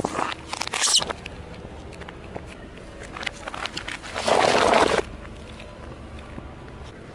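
Car tyre rolling onto and crushing small objects on asphalt. There is a squeaking, crackling burst in the first second, scattered crackles, then a loud crunch lasting under a second about four seconds in.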